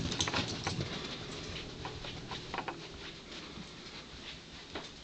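Light, irregular footfalls and taps of a Pembroke Welsh Corgi and the person following her on carpeted stairs and floor. They are loudest in the first second, then fainter.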